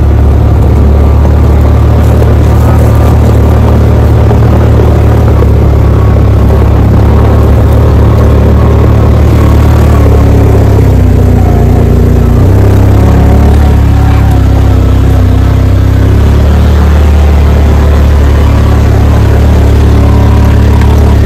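Side-by-side UTV engine running as it drives a rough dirt trail, heard on board as a loud, steady low drone. Its pitch wavers a little around the middle.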